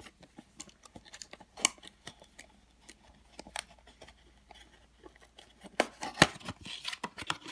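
Blind-box packaging being handled and opened: scattered clicks, taps and short rustles of cardboard and plastic, with a sharp click about six seconds in.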